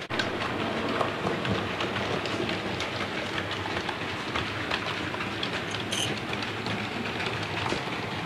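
Model A3 steam locomotive 'Minoru' and its coaches running on the layout's track: a dense, continuous rattle of small wheels clicking over rail joints and pointwork.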